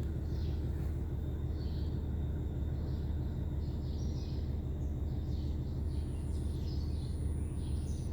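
Steady low machinery hum, with small birds chirping over it.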